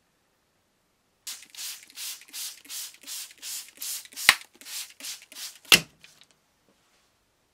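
Hand trigger spray bottle misting the painted plate before wet sanding: about a dozen quick sprays, two or three a second, with two sharp clicks among them as the loudest sounds.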